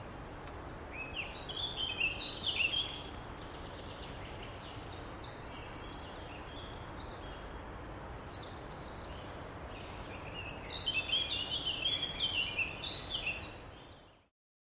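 A songbird singing in quick, chirpy phrases over a steady outdoor background hiss, louder twice: once near the start and again in the last few seconds before the sound fades out.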